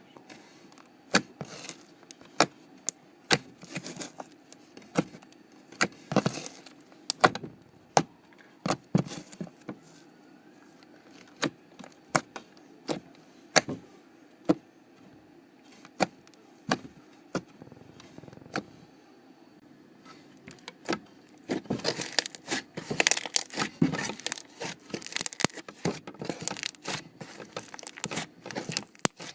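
Slime being squeezed and stretched by hand, giving sharp, irregular popping clicks as trapped air bursts. The pops come thicker and faster toward the end.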